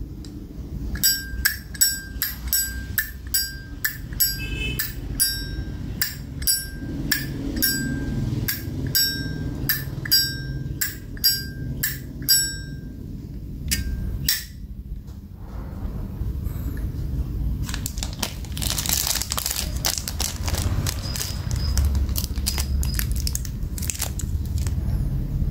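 Zippo lighter's lid flipped open and snapped shut over and over, about two clicks a second, each click with a short bright metallic ring. After a pause, a stretch of rustling handling noise.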